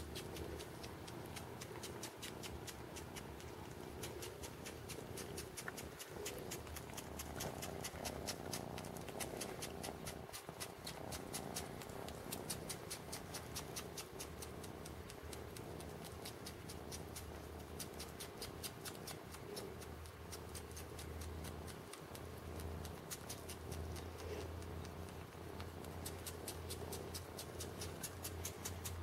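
Kitten suckling on a shirt: faint, rapid sucking clicks at about three or four a second, in a steady rhythm.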